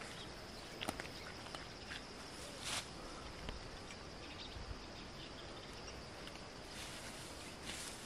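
Leafy bean plants rustling and brushing as someone walks through them and picks greens, with a louder brush of leaves a little under three seconds in. Under it runs a faint, steady, high insect drone.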